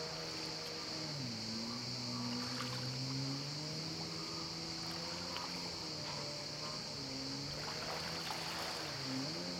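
Yamaha SuperJet stand-up jet ski's two-stroke twin engine revving up and down as it carves turns, its pitch dropping about a second in and again near the end. A steady high hiss runs underneath.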